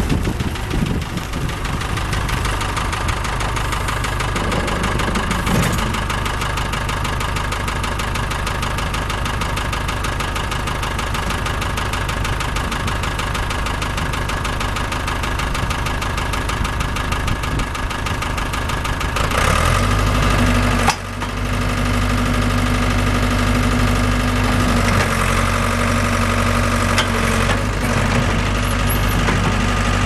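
Ford 555D backhoe's Ford diesel engine running steadily. About two-thirds of the way through it gets louder, with a deeper, steadier hum, and there is a brief break just after.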